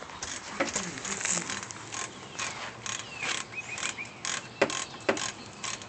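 Irregular clicks and clinks of metal hand tools and engine parts being handled during engine work, with two sharper knocks near the end.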